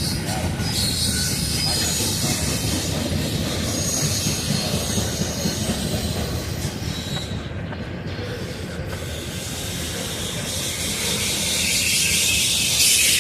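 Freight cars of a Norfolk Southern freight train rolling past with a steady rumble and wheel noise, a faint high wheel squeal about four seconds in, and a brighter hiss building near the end.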